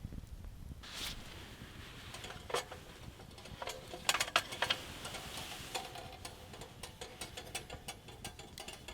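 Wood fire crackling: irregular sharp pops and snaps over a soft hiss.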